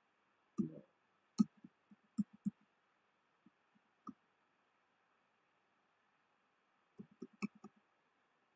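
Light clicks of a computer keyboard's keys, scattered singly over the first few seconds, then a quick run of about six near the end, over a faint steady hiss.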